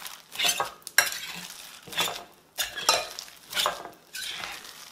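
Stainless-steel potato masher pushed repeatedly into a thick, moist cooked mixture in a ceramic bowl. About six mashing strokes, each a wet squash with the metal knocking and scraping against the bowl.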